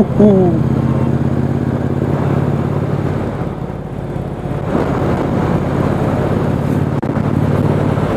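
Motorcycle engine running at a steady cruise with wind noise rushing past, the engine note dropping briefly at the start; the wind noise grows stronger about halfway through.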